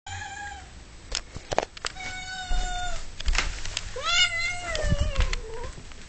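Domestic cat meowing three times. The last call is long and rises, then falls in pitch. A few sharp clicks come between the calls.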